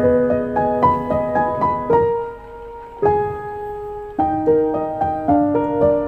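Background piano music: a gentle melody of struck notes, with two longer held notes near the middle.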